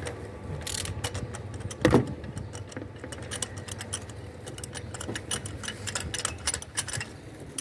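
Metallic clicks and clinks of a wrench working on an engine's spark plug, with a louder knock about two seconds in, over a faint steady low hum.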